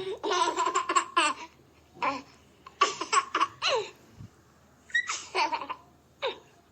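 A baby laughing in several separate bursts of high-pitched giggles, each falling in pitch, with short pauses between.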